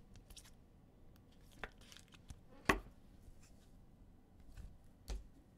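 Trading cards being handled and flipped through: a few soft, scattered clicks and taps, the sharpest about two and a half seconds in.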